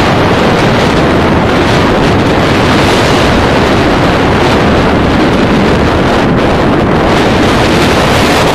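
Loud, steady wind noise buffeting the microphone, drowning out everything else.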